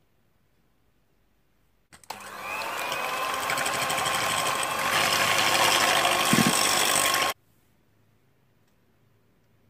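Electric hand mixer switched on with a click about two seconds in, its motor whirring up to speed as the beaters whisk a thin egg-and-cream batter in a stainless steel bowl. It gets louder about halfway through and cuts off suddenly.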